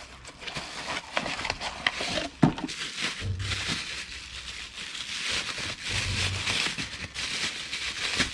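Bubble wrap and cardboard packaging crinkling and rustling as an ignition coil is lifted out of its box and unwrapped, with a single light knock about two and a half seconds in.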